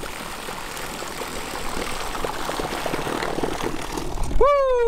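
Bow-mounted Garmin electric trolling motor's propeller churning shallow, weedy water as it drags the bass boat through, a steady rushing with many small ticks. Near the end a man's voice breaks in with a long, drawn-out call.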